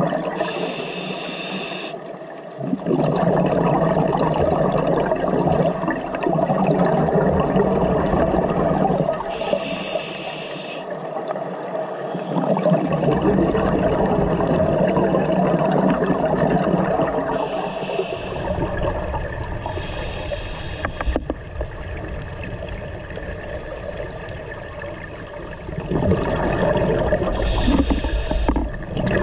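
Scuba regulator breathing heard underwater: short hissing inhalations recur about five times, between long stretches of bubbling exhaust.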